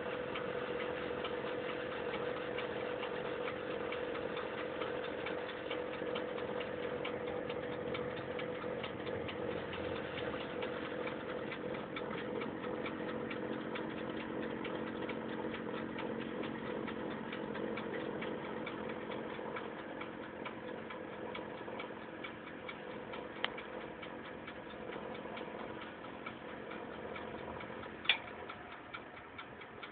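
Countertop toaster oven running while baking: a steady hum with continuous fast, even ticking, easing off somewhat over the last ten seconds. There are two sharp clicks near the end.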